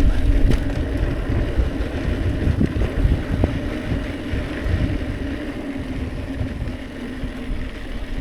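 Hardtail mountain bike rolling slowly over a dirt trail: wind buffeting the camera microphone and the bike rattling over small bumps, with a steady hum underneath.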